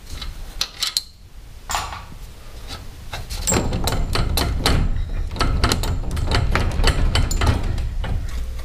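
Unwound garage door torsion springs handled by hand at the center bracket: light metallic clicks and rattles that grow busier about three seconds in, over a low rumble.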